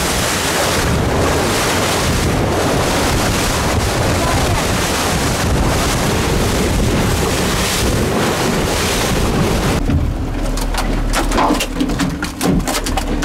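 Loud, even rush of wind and water from a boat running at speed, its wake splashing. About ten seconds in this gives way to a rapid series of slaps as an albacore tuna flaps its tail on the boat's deck grating, over a low steady hum.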